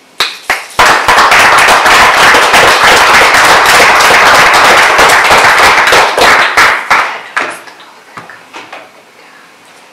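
Audience applauding: a few separate claps, then dense clapping for about six seconds that thins to scattered claps and dies away.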